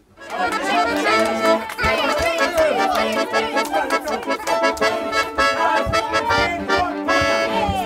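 Piano accordion playing a quick tune, with many notes changing rapidly over a rhythmic bass.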